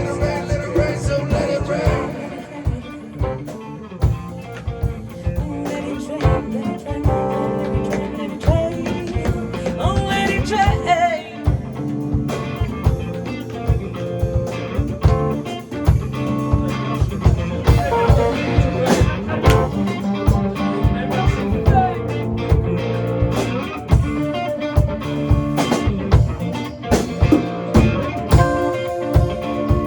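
Blues-rock band playing an instrumental stretch of the song: guitar over a drum kit keeping a steady beat.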